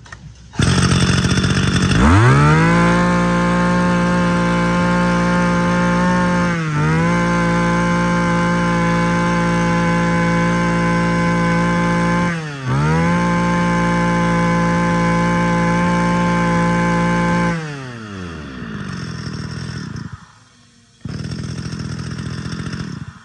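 Robin NB232 23cc two-stroke brush cutter engine revved from idle up to full throttle and held there. The throttle is briefly released and reopened twice, then the engine drops back to idle near the end.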